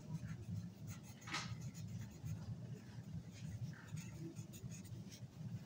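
Felt-tip marker writing, a few faint scratchy strokes, over a steady low hum.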